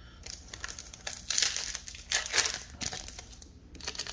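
Foil wrapper of an NBA Hoops trading-card pack crinkling in the hands as it is opened, in irregular bursts.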